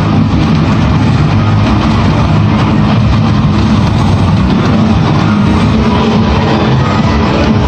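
Loud, dense music playing without a break.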